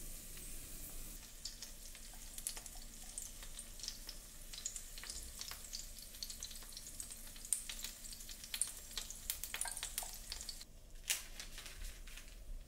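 Wild chive pancake frying in hot oil in a pan, sizzling steadily with many small crackling pops. The sizzle drops away about eleven seconds in, followed by a couple of sharp clicks.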